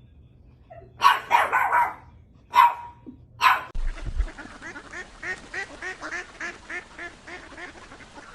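A dog barks a few loud times. Then, after a cut about four seconds in, ducks quack in a quick even series of about four calls a second.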